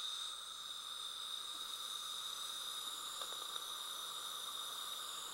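Steady high-pitched hiss and whine of a dental saliva ejector's suction in the patient's mouth.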